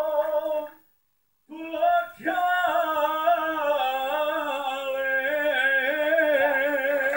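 A man singing unaccompanied into a microphone, holding long notes with a wide vibrato. The voice cuts out completely for about half a second near the start, comes back with a sliding note, and then holds one long final note.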